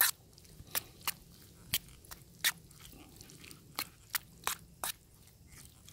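A metal spoon stirring thick vegetable stew in a stainless steel camping pan. It makes about ten short, irregular scrapes and clinks against the pan.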